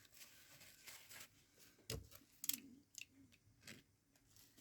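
Faint scattered clicks and scrapes of a fully serrated tanto blade starting to saw into seatbelt webbing.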